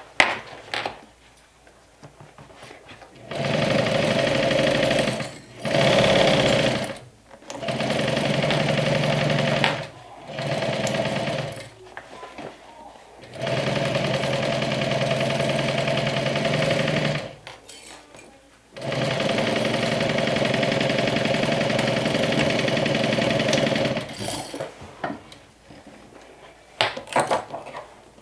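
Juki DU1181N walking-foot sewing machine stitching a seam in short runs: about seven stretches of steady running, stopping and starting again after brief pauses. A few sharp clicks and taps of handling near the end.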